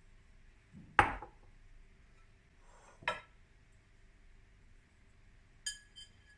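Kitchenware being handled and set down. There is a solid knock about a second in, then a lighter ringing clatter around three seconds, then near the end a bright, ringing clink twice in quick succession, like glass or metal tapped.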